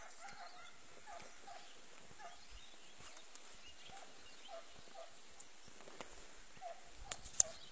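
Faint hunting dogs on a hare hunt, giving a quick run of short, high yelps, several a second. A sharp click comes about seven seconds in, louder than the yelps.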